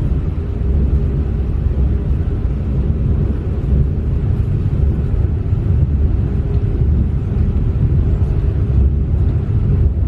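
Small mountain river flowing: a steady, low rush of water.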